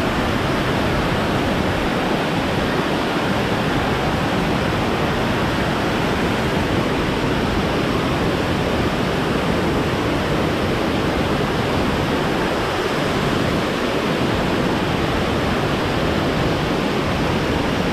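Waterfall pouring down: a steady, even rush of water with no breaks.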